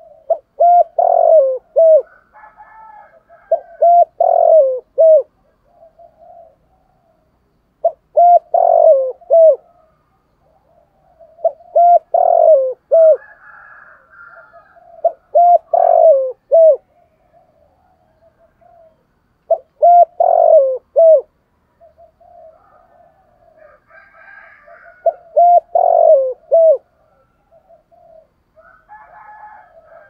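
Spotted dove cooing: seven repeated phrases of a few low notes each, about every four seconds, each ending in short clipped notes, with a longer pause past the middle. Faint higher calls can be heard between phrases.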